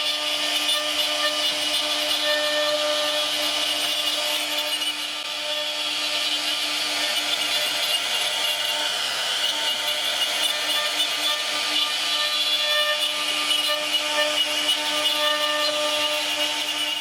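CNC router cutting wood: a steady high spindle whine over the noise of the bit chewing through the wood, dipping slightly about five seconds in.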